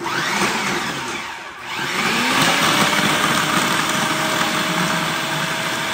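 Food processor motor starting up and chopping frozen banana chunks, the pieces rattling against the blade and bowl. It dips briefly about a second and a half in, then runs steadily with its tone rising slightly.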